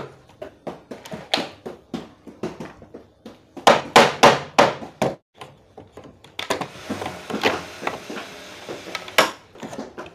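Nailed pallet-wood packing crate being pulled apart by hand: repeated wooden knocks and cracks as slats are wrenched loose, with a run of loud knocks about four seconds in. This is followed by a longer stretch of scraping noise with more knocks.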